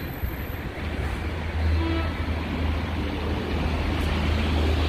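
Steady low rumble with a hiss above it: outdoor street background noise on a phone microphone, with no single sound standing out.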